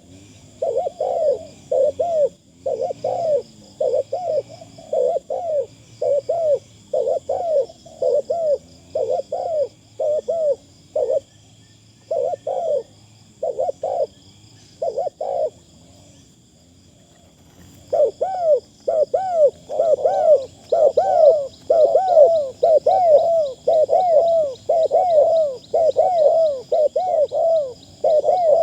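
Spotted dove cooing over and over in a long run of short, arching coos. The calling stops for a couple of seconds past the middle, then starts again more densely.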